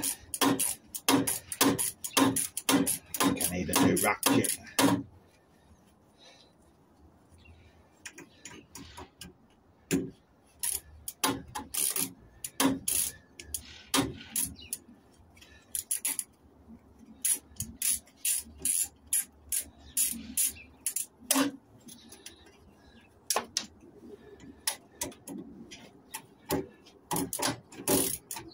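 Hand tools clicking and clinking against the metal fittings of a boiler being dismantled: a quick run of clicks for about the first five seconds, then scattered sharp clicks and knocks.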